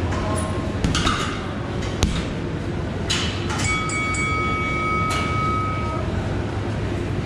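A couple of punches thud into a heavy bag. About three and a half seconds in, a boxing round timer sounds a steady electronic tone for about two seconds, marking the end of the round.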